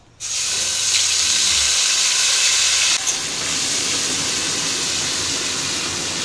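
Ginger-onion-garlic paste hitting hot mustard oil in a kadai: a loud sizzle that starts suddenly, easing a little about three seconds in as the paste is stirred with a spatula.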